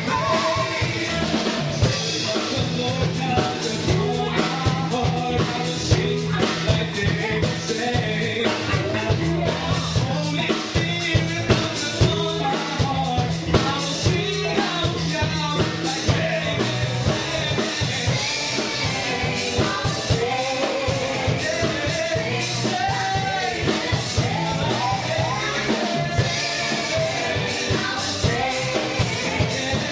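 Live gospel song: several singers on handheld microphones singing over a band with drum kit keeping a steady beat.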